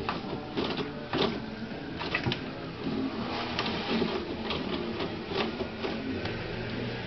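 Toilet paper rustling and crinkling, with the roll rattling on its wall holder, as a cat paws and bites at it in irregular tugs.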